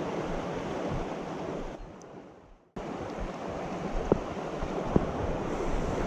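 Steady rushing of river rapids. It fades to silence about two seconds in and cuts back abruptly, and two short clicks follow later.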